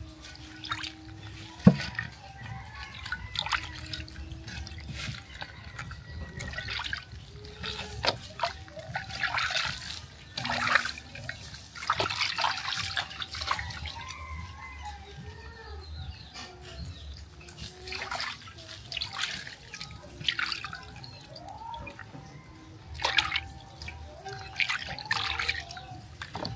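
Water splashing and dripping as raw fish pieces are washed by hand in an aluminium pot of water, in irregular bursts, with a sharp knock against the pot a couple of seconds in.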